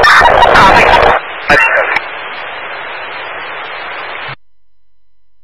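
Fire-department radio traffic heard through a scanner: a loud burst of garbled transmission and static, a second short burst, then steady radio hiss that cuts off suddenly about four seconds in.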